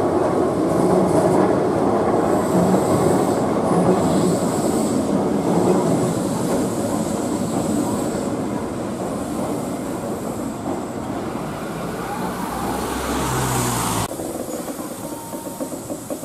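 Keihan 700-series two-car electric train running past at close range on street-level track, its wheels and running gear rumbling steadily. Near the end the sound cuts abruptly to a quieter passage in which a second train moves slowly, with faint regular knocks.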